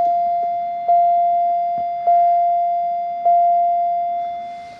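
1992 Pontiac Bonneville's dashboard warning chime ringing about once every 1.2 seconds, each ding a clear single tone that fades slowly, four strikes in all. It is the chime for the key in the ignition with the driver's door open, and it fades away near the end.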